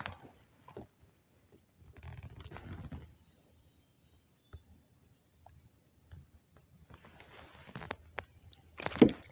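Handling noise in a kayak while a small spotted bass is held up on the line: sporadic clicks and rustling, with one sharp loud knock near the end.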